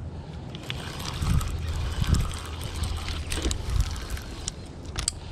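Wind buffeting the microphone as a strong, uneven low rumble, with a few short sharp clicks from hands handling a fishing rod's reel and line.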